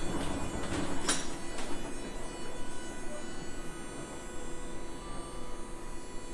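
Steady electrical hum and whine with several high tones from a stationary electric tram standing with its doors open, with a few sharp clicks about a second in.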